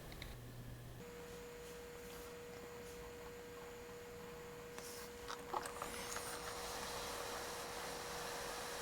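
Faint steady whine of a hot air rework station heating a circuit board, with a hiss of air that grows a little after about six seconds and a few light clicks of tools on the board around five to six seconds in.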